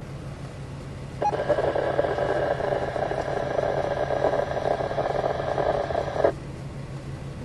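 Two-way radio receiver opening with a click, hissing and crackling with static or garbled traffic for about five seconds, then cutting off sharply, over a steady low hum.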